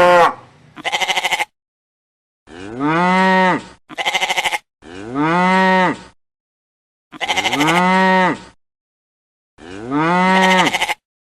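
Cow mooing four times, each moo about a second and a half long, rising then falling in pitch. Between the moos come short, quavering bleat-like calls. The calls are spaced evenly and separated by dead silence, like a repeated sound effect.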